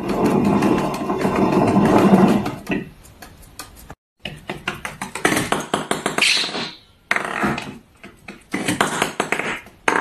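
A small wooden toy millstone being turned by a parrot: a rumbling wooden grind for about two and a half seconds. After that come scattered taps and clicks of a parrot handling small toys.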